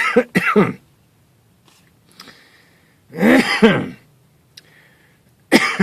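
A man clearing his throat and coughing in three bouts: a double one at the start, a louder one about midway, and another near the end. It follows a draw of cannabis smoke.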